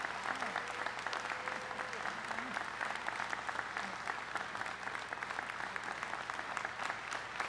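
Audience applauding: a dense, steady clatter of many hands clapping, with a faint voice briefly heard under it near the start.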